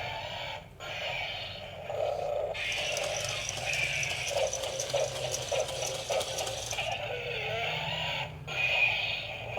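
Remote-control toy velociraptor walking in demo mode: its small geared motor hums and the leg mechanism clicks and rattles steadily. Over this, electronic dinosaur roars play from the toy's built-in speaker.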